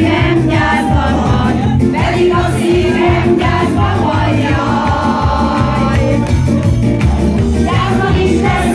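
Live band music: a woman singing into a microphone over keyboard and a steady bass beat.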